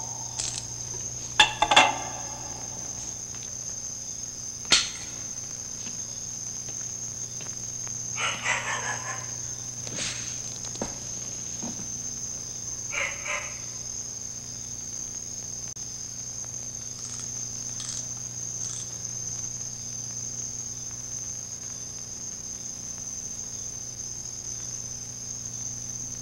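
Crickets chirring in one steady high trill over a low hum, with a few short knocks and rustles of movement in the first half.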